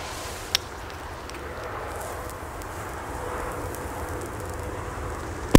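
Outdoor hiss and wind for several seconds, then near the end a single sharp bang from a DumBum P1 friction-head firecracker (0.5 g), echoing as it dies away. It is strong for a P1 banger.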